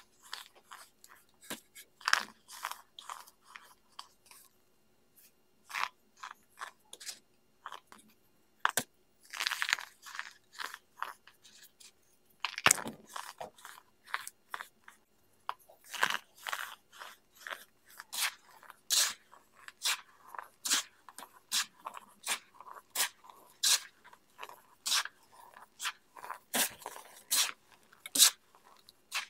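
Pressed baking-soda pucks crushed and crumbled between fingers: dry, crisp crunching in a run of short cracks. They come sparsely with pauses at first, then steadily, one or two a second, through the second half.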